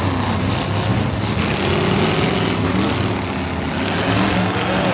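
Demolition derby car engines running loud and continuous, their pitch rising and falling.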